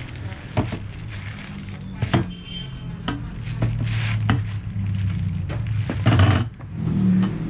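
Plastic wrap on the lid of an aluminium motorcycle top box crinkling and crackling under a person's boots as he stands on it and shifts his weight, with a few sharp knocks; the loudest crinkle comes about six seconds in as he steps off.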